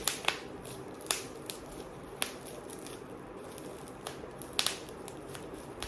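Plastic packaging being handled as a figure is eased out of it: a few sharp, separate crackles and clicks, spread out, with quiet handling between them.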